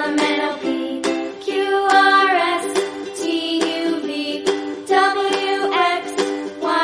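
Background music: a light tune of plucked notes starting every half second or so.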